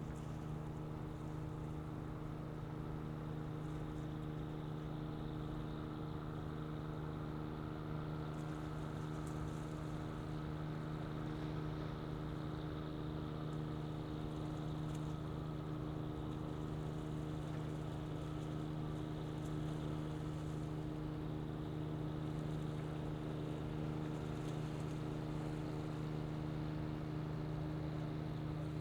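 A large ferry's diesel engines running steadily as it passes, a low hum made of several steady tones that grows slightly louder.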